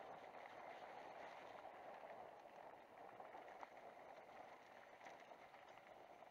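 Faint steady rush of a mountain bike rolling down a dry dirt trail, tyre noise on the dirt mixed with wind, with a few small clicks of gravel and bike rattle.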